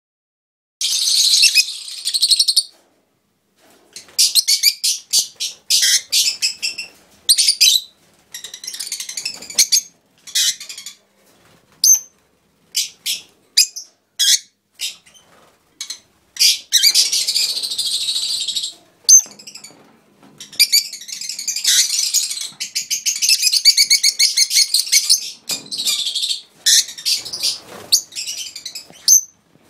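Peach-faced lovebirds calling: loud, shrill, high-pitched shrieks in rapid series, starting about a second in, some in short bouts and some in long unbroken stretches of chatter.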